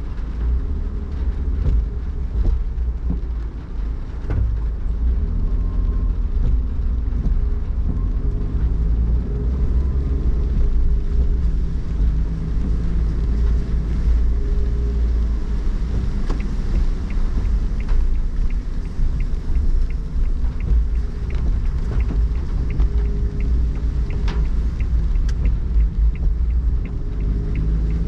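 Car driving on a wet road, heard from inside the cabin: a steady low rumble of engine and tyres, with scattered light ticks of rain on the glass in the second half.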